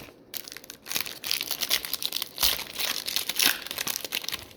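A trading card pack's wrapper being torn open and crinkled by hand, in quick irregular crackles.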